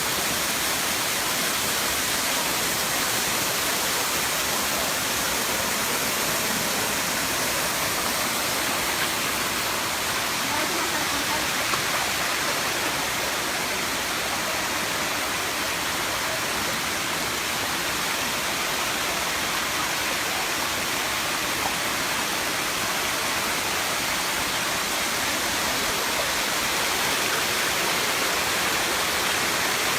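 Water of the seventh tier of Erawan Falls pouring over the rocks, a steady, unbroken rush.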